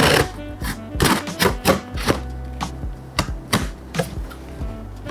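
Background music with steady bass and held tones, under a string of sharp clicks and taps.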